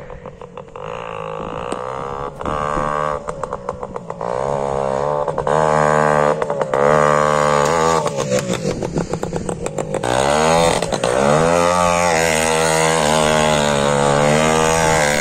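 Motovespa Vespino ALX moped's small two-stroke engine running through its new exhaust, revving up and falling back several times. It gets louder over the first few seconds, with a rapid crackle in between.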